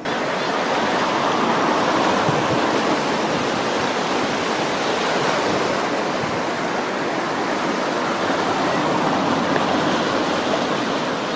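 The River Irwell in flood, its swollen water rushing past in a steady, loud wash of noise.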